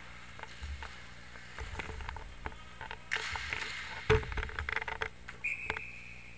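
Inline hockey play: scattered clacks and knocks of plastic sticks, ball or puck and skate wheels on the rink's sport-tile floor, with one sharp loud knock about four seconds in. A brief high steady tone sounds near the end.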